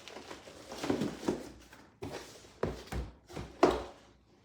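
Handling noise from packaging: a handful of irregular knocks and thumps as boxes are moved and set down on a surface.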